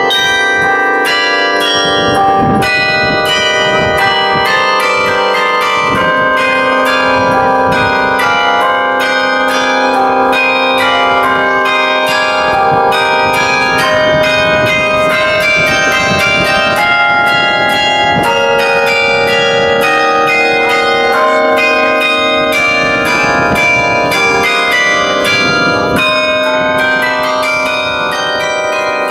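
Mobile carillon played from its baton keyboard: a fast melody of struck bronze bells with chords and quick runs of notes, each bell ringing on under the next.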